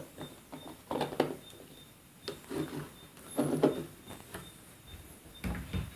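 Scattered light knocks and clicks of hard plastic being handled as the star-patterned dome cover is fitted onto the night-light projector, with a heavier bump near the end.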